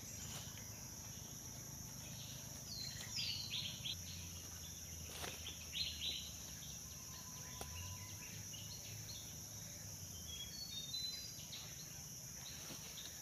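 Steady high-pitched drone of forest insects such as crickets, with bursts of dry-leaf rustling and handling noise as a captured mouse-deer is held on the ground, and a few brief bird chirps near the end.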